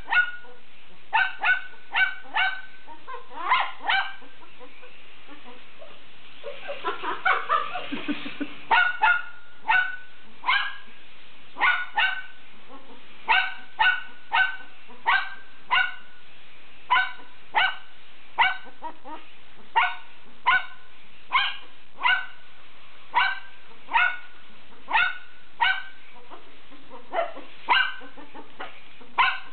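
Poodle puppy yapping over and over in short, high barks, about one a second, with a denser, rougher stretch of barking about seven seconds in.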